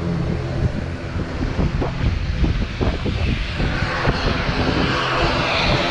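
Turboprop aircraft engines running on the apron, a steady drone with a hiss that grows stronger from about three seconds in. A few sharp knocks fall in the middle.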